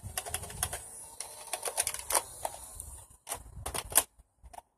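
Rapid, irregular clicking and knocking of hard plastic Nerf blasters and gear being handled, with a louder knock about four seconds in.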